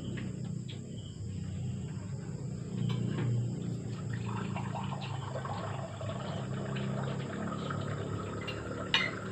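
Spoons clinking and scraping on dinner plates as a family eats, over a steady low hum, with one sharper clink about nine seconds in.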